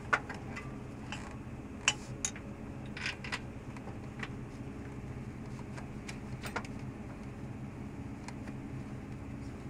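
Metal hand tools clinking against parts in a motorhome engine bay: several sharp clinks in the first few seconds and one more about six seconds in, over a steady low hum.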